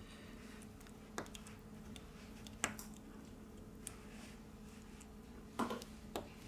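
Four small sharp clicks and taps of tools and parts while a smartphone is being reassembled, spaced a second or more apart, the loudest near the end, over a faint steady hum.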